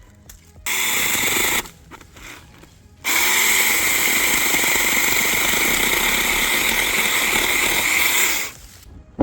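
Battery-powered saw running while cutting tree branches: a short burst of about a second, then a longer run of about five seconds.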